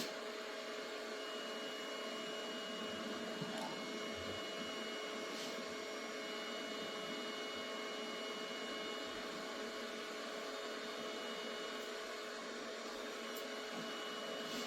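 Elegoo Neptune 4 Max 3D printer running its automatic bed-levelling routine: a steady electrical hum with a few constant whining tones, one high whine, and a few faint ticks.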